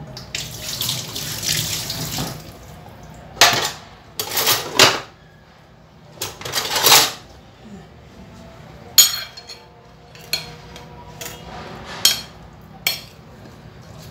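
Water running from a tap in several short bursts, then a metal spoon clinking against a ceramic plate five or six times, about once a second.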